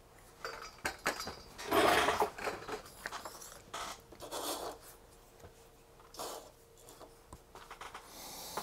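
Handling noise as a bare circuit board is shifted about on a wooden workbench: a string of irregular scrapes and rustles with a few light knocks, the loudest about two seconds in.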